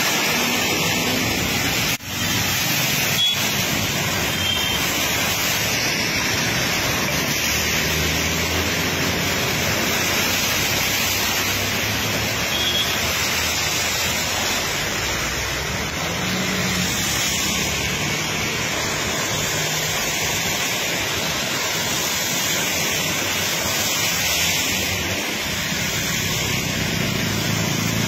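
Steady rushing noise of heavy rain and floodwater flowing across a road, with the low hum of vehicle engines as a truck and a bus drive through the water. The noise briefly drops out about two seconds in.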